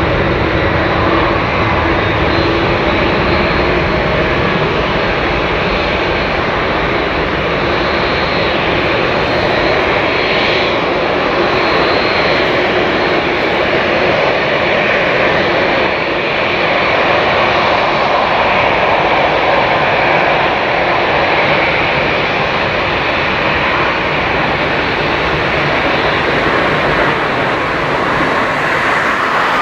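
Boeing 787-8 Dreamliner's GEnx-1B turbofan engines running as the airliner taxis: a steady, loud jet rumble and hiss with a faint high fan whine.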